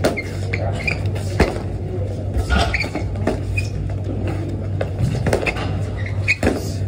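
Boxing sparring: gloved punches landing with a few sharp thwacks, the loudest about one and a half seconds in and again near the end, amid shuffling footwork on the gym floor, over a steady low hum.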